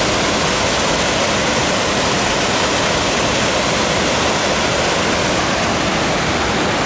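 Waterfall pouring down a rock face into a pond: a loud, steady rush of water.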